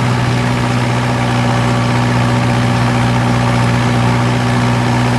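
Farm tractor engine running at a steady speed, a constant loud hum.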